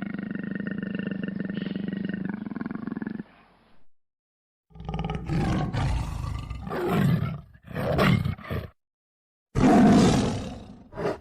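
Tiger vocalizing: a steady, pulsing growl for about three seconds, then after a short pause several separate snarling growls, and a louder roar near the end.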